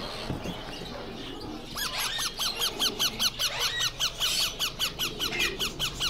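A group of green ringneck parakeet chicks calling in a fast, steady series of short, squeaky calls, about three or four a second, starting about two seconds in.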